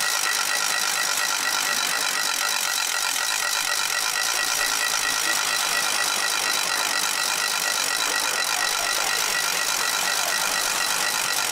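Racing bikes' rear freewheel hubs clicking so fast that they merge into a steady, high buzz as the riders coast through a corner.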